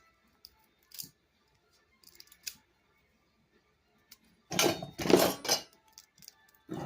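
Hand snips clicking and scraping against a small electric motor's stator while copper windings are pried out, with a loud burst of metal-on-metal scraping and clatter about four and a half seconds in and a shorter one near the end. The windings are stubborn and not coming out easily.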